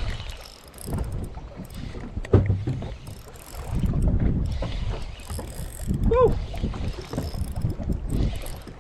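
Wind buffeting the microphone and water moving around a small fishing boat, a rough, uneven rumble that swells and fades. A single knock about two seconds in, and a short rising-and-falling voice call around six seconds.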